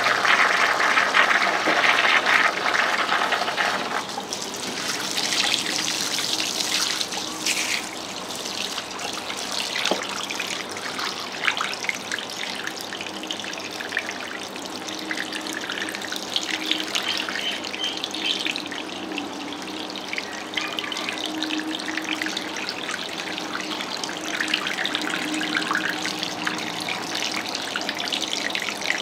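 Water running from a tap and splashing in a sink, over a faint steady hum. A louder droning sound with a steady pitch drops away about four seconds in.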